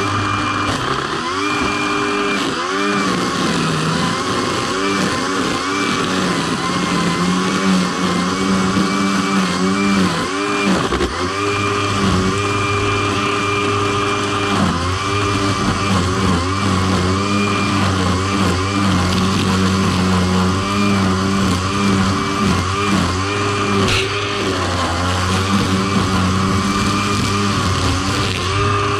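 John Deere E120 riding lawn mower's engine running steadily under load, its pitch dipping briefly and recovering every few seconds, with a steady high whine over it.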